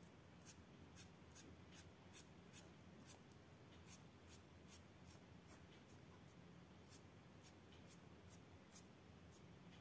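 Faint felt-tip marker strokes on colouring-book paper: short scratchy strokes, a few a second, over a low steady hum.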